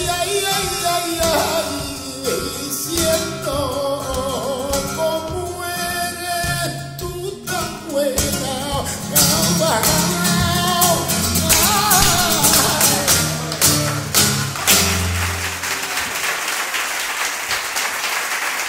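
Male flamenco singer singing the closing line of a granaína, accompanied by a flamenco guitar. The guitar ends on a final strummed chord about 15 seconds in, and audience applause follows near the end.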